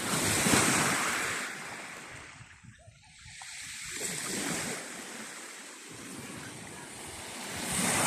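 Sea waves breaking and washing up on the shore in repeated surges, loudest about half a second in, fading near three seconds, then building again twice.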